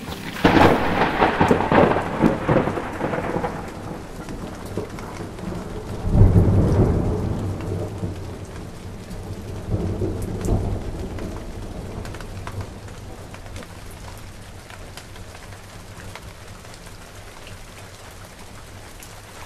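Rolls of thunder, the loudest about six seconds in and a weaker one near ten seconds, over a steady hiss of rain that carries on after the rumbles die away.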